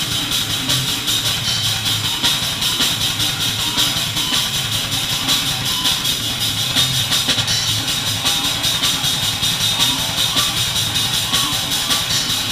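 Brutal death metal played live, heard from close to the drum kit: fast, dense drum strikes run steadily with the rest of the band underneath.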